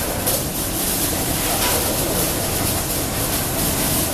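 Arc welding: the welding arc crackling and hissing steadily.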